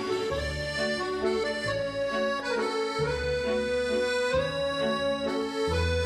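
Instrumental music: held chords over a bass line that changes note every second or so.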